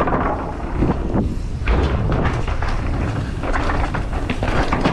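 Mountain bike riding over a rough dirt track: steady low wind and tyre noise on the microphone, broken by frequent short knocks and rattles from the bike over bumps.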